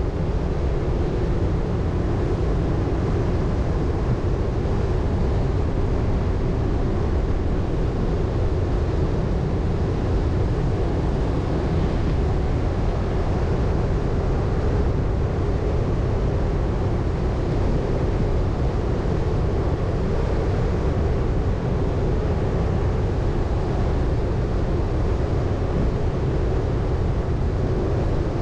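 Chevrolet Colorado ZR2 Bison pickup driving steadily over soft beach sand: a steady low rumble of engine and tyres.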